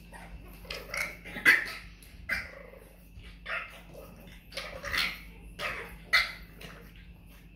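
Boston Terrier puppies play-fighting, giving a string of about ten short barks and yips, the loudest about a second and a half in and again near six seconds.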